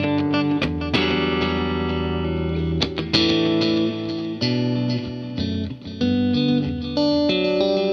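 Electric guitar, a Fender Stratocaster through a Boss CS-3 Compression Sustainer into a Vox AC30 amp, with the pedal's tone turned toward bright. A handful of picked notes and chords each ring out long and even.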